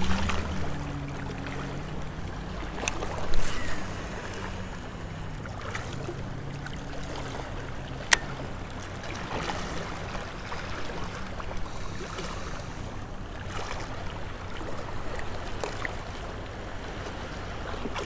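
Wind on the microphone and small waves lapping along a rocky lake shore. A low hum runs under it for the first several seconds, with a short louder rustle about three seconds in and a single sharp click about eight seconds in.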